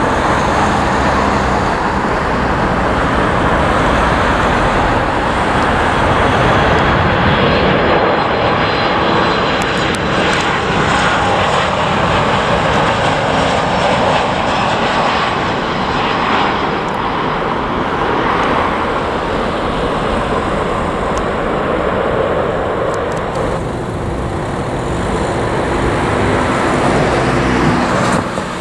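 Jet airliner engines passing the runway, a loud, steady rush of engine noise with faint sliding high tones over it, cutting off abruptly near the end.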